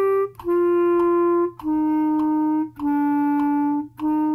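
B♭ clarinet playing a slow line of long, separately tongued notes, each about a second, stepping down through written A, G, F and E, then back up to F near the end.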